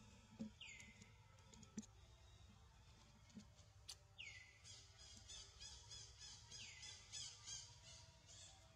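Faint bird calls: three quick whistles that drop sharply in pitch, about a second in, near the middle and a few seconds later. A faint run of rapid high chirps comes through the second half.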